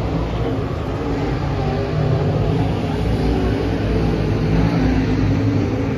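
Race car engines running, a loud steady drone that swells slightly about two seconds in.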